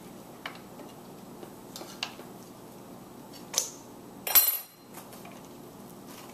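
A metal spoon scooping seeds out of a halved spaghetti squash, with a few light clicks. A little over four seconds in comes a loud ringing clank as the spoon is knocked against a stainless steel bowl to drop the seeds.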